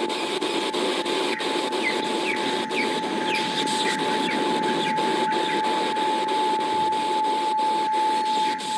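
Oil diffuser's speaker playing recorded birdsong: a run of short, quick, falling chirps over a steady hiss, with a thin steady whine underneath throughout.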